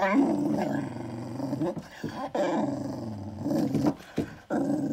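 Russian hunting spaniel begging for food with long, low drawn-out vocal sounds, several in a row with short breaks between them.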